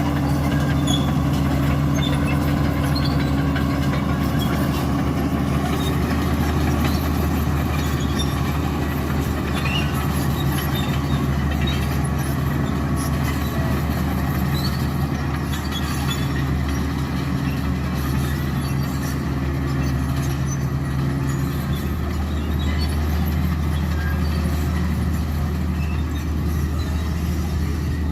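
Caterpillar bulldozer's diesel engine running steadily under working load, a constant low drone, with the pitch shifting slightly about three quarters of the way through.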